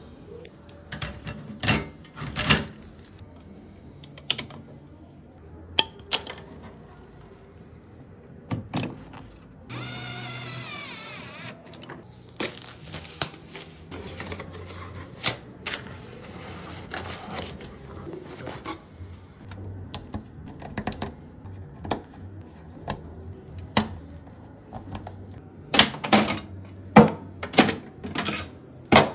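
Scattered sharp clicks and knocks of computer parts being handled and fitted into a PC case, thickest in a quick run near the end. About ten seconds in comes a continuous whirring or rasping noise lasting about two seconds.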